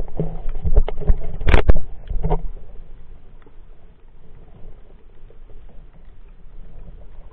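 Underwater sound picked up through an action camera's waterproof housing: a burst of knocks and clicks against the housing in the first two and a half seconds, the loudest about a second and a half in, then a low, steady murmur of moving water.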